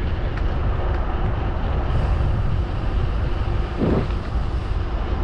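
Steady wind rush and rumble on the microphone of a bicycle riding along a paved bike path.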